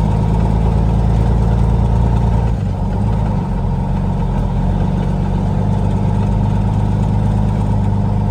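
Semi truck's diesel engine running steadily, heard from inside the cab, with a brief dip and change in the engine note about two and a half seconds in.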